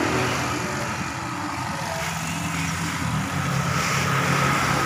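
Automatic sack screen-printing machine running, its electric motor and pneumatic drive giving a steady mechanical hum.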